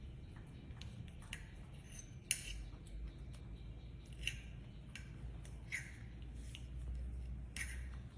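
A series of short, sharp snipping clicks, about seven spread unevenly, the loudest about a third of the way in, over a steady low hum.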